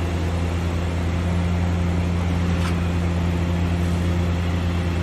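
Heavy construction machinery engine running steadily during a concrete pour, a constant low drone that does not change.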